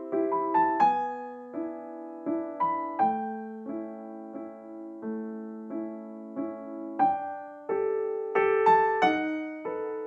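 Background piano music: a gentle melody of single struck notes and chords, each ringing and fading before the next.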